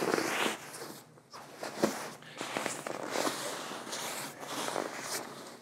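A sleeping bag being stuffed and compressed by hand into a backpack: fabric rustling and swishing in uneven pushes, with a sharp click about two seconds in.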